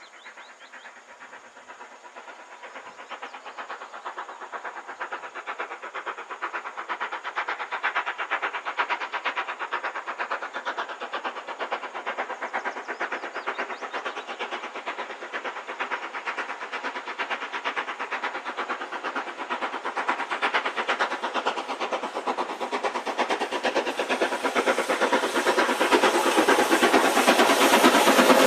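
An LMS Stanier Black 5 two-cylinder 4-6-0 steam locomotive approaching with a train. Its exhaust beats come as a fast, even chuff that grows steadily louder as it nears. Near the end the engine and coaches draw level.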